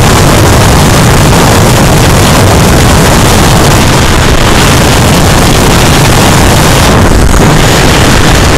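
Loud, steady rush of wind buffeting the microphone of a camera on a motorcycle at freeway speed, with the bike's engine and road noise mixed in. It stays close to full scale, verging on distortion.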